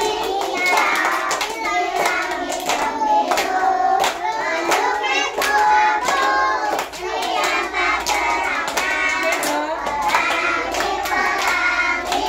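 Young children singing a song together, with hand claps keeping a steady beat.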